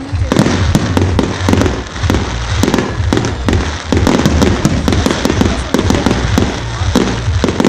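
Fireworks display: white glittering aerial shells bursting into a dense run of crackling and popping, many sharp cracks a second, over a steady low rumble.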